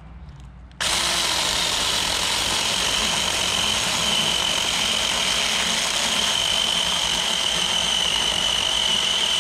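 Taranzy mini cordless electric chainsaw switching on about a second in and cutting through a birch log almost four inches thick. Its motor makes a steady high whine over the chain tearing through the wood.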